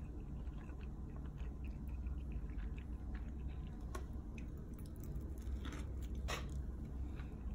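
Close-up chewing of a pizza slice: wet mouth sounds with many small crunchy clicks from the crust, over a steady low hum. About two-thirds of the way through, two louder short noises stand out, about half a second apart.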